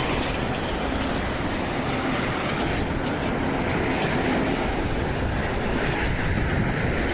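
Steady rumbling engine noise with a faint low hum, unbroken throughout.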